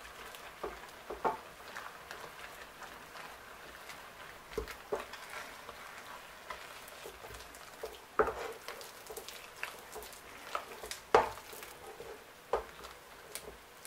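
A wooden spoon stirring and mashing thick, stiff water fufu (cassava dough) against the sides of a stainless steel pot. It makes irregular soft knocks and sticky squelches, a few of them louder.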